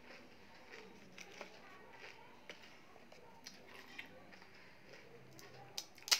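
Quiet chewing and mouth sounds with small scattered crackles, then near the end two sharp, crisp cracks as a thumb breaks through the thin fried shell of a pani puri to open it.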